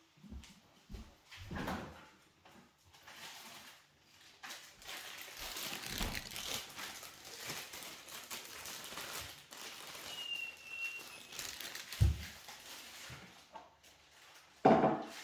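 Handling noises of mixing food in a bowl: rustling and scraping with a few light knocks, a brief high squeak about ten seconds in, and a louder knock near the end.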